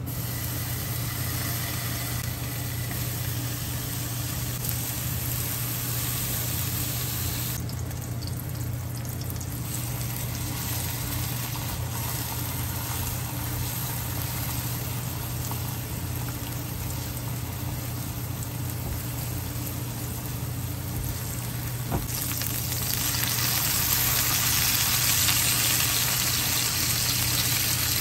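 Pork belly slices sizzling in a nonstick frying pan, over a steady low hum. A click about two-thirds of the way through, after which the sizzle grows louder as the slices brown.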